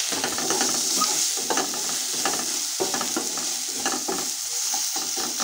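Wooden spatula stirring and scraping a paste with curry leaves frying in oil in a non-stick kadhai, with repeated scrapes over a steady sizzle. The paste is being sautéed over a medium flame.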